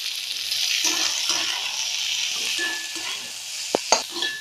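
Chopped onions sizzling as they fry in a pan, stirred and scraped with a spatula from about a second in, with two sharp knocks of the spatula against the pan near the end.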